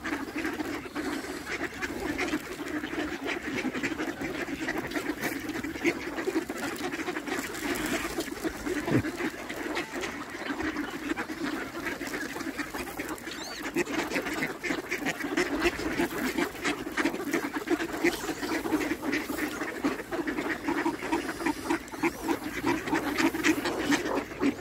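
A large flock of mallard ducks quacking, many calls overlapping without a break.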